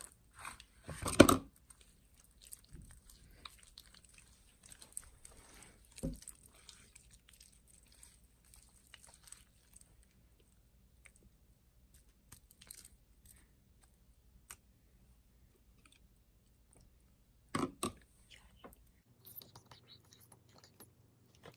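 Glossy slime being mixed as it activates: scattered quiet sticky clicks, with a few louder ones about a second in, around six seconds and again near eighteen seconds.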